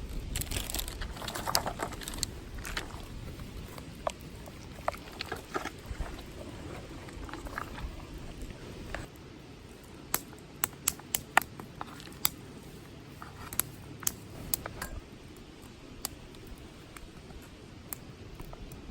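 Scattered light clicks and taps, most of them sharp and bunched together in the second half, over a low steady rumble.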